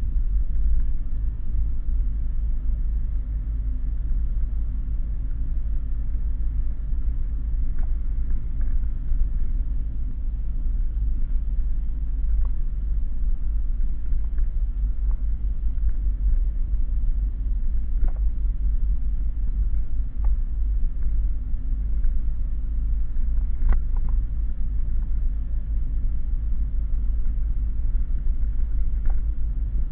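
Truck engine and drivetrain running with a steady low rumble, heard from inside the cab while driving, with a few faint clicks or rattles.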